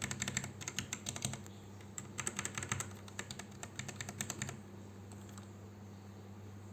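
Typing on a Dare-U EK884 mechanical keyboard with brown switches: rapid key clicks in two runs with a short pause between them. The typing stops about two-thirds of the way through, leaving only a low steady hum.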